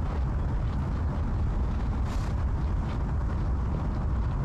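A steady low rumble, with a brief faint rustle about two seconds in.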